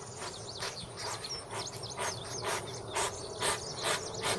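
Hedgehog snuffling, with short sniffs about twice a second. Small birds chirp in the background.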